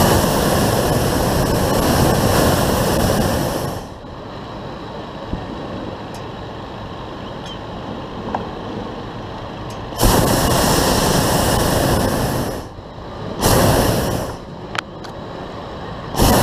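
Hot air balloon propane burner firing in blasts overhead: a long blast of about four seconds at the start, another about ten seconds in, a short one soon after, and a fourth starting just at the end. Each blast starts and stops abruptly, with a quieter steady rush between them.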